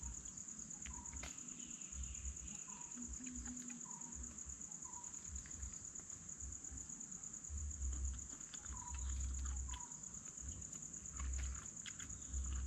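Steady high-pitched insect drone of the forest, with a short call repeating about once a second. Scattered clicks and low thumps from a jackfruit being handled; the thumps are loudest about eight to nine seconds in.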